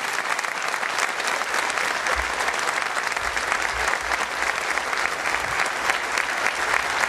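A large seated audience applauding steadily, with many hands clapping at once.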